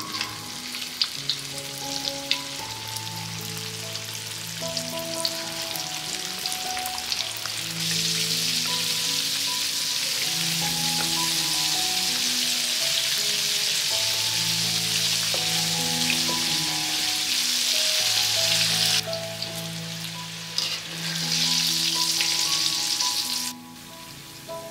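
Flour-coated chicken slices deep-frying in hot oil in a wok: a steady sizzle that grows louder about eight seconds in and breaks off abruptly twice near the end. Soft background music with held notes plays underneath.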